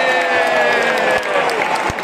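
Football stadium crowd singing a drawn-out chant together over loud crowd noise, the held note sinking in pitch partway through, with scattered claps.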